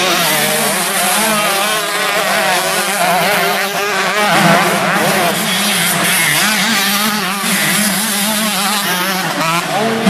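Several 125cc two-stroke motocross bikes racing together, their engines revving up and down through corners and over jumps, many overlapping engine notes rising and falling.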